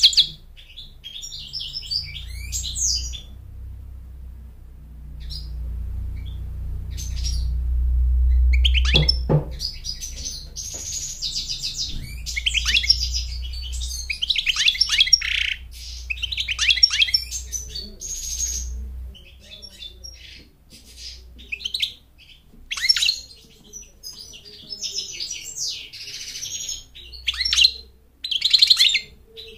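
European goldfinch singing: bursts of fast, bright twittering and chirping phrases with short pauses between them. A low rumble runs under the song for the first two-thirds, loudest about eight seconds in, and there is a single knock about nine seconds in.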